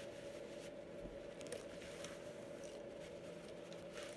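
Faint rustling and a few light clicks of small items being handled, over a steady low electrical hum.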